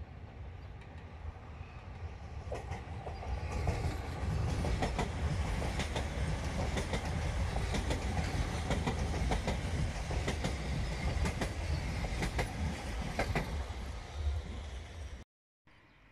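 A MÁV Stadler FLIRT electric multiple unit passes by. A rumble builds as it approaches, then its wheels click over the rail joints again and again. The sound eases slightly and then cuts off suddenly near the end.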